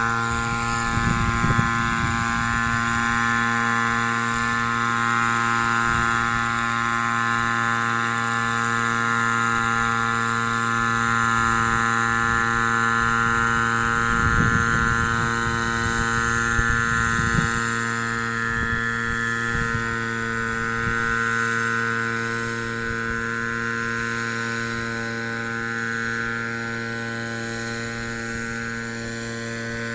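Small two-stroke engine of a backpack motorized mist blower running at steady high speed, an even, unchanging whine. A few low bumps near the start and about a quarter of the way through.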